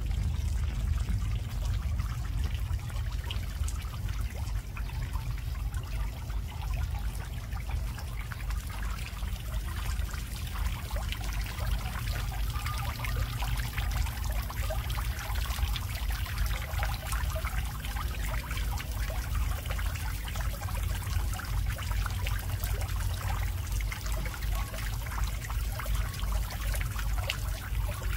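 Two-tier garden fountain trickling: water spills and drips from the upper bowl into the basin below in many fine splashing drops, over a steady low rumble.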